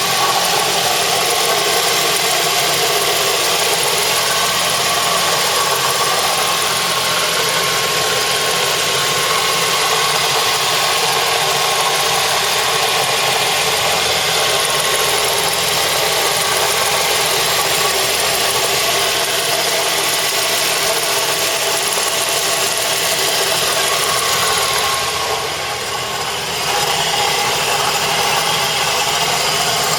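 Mazda 3 engine idling with a steady rattle from the accessory drive belt area, which the owner is fairly sure comes from the belt. It drops in level briefly about 25 seconds in.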